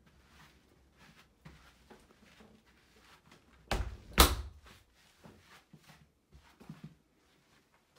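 Two dull thuds about half a second apart, a few seconds in, the second louder, over faint scattered ticks and rustles.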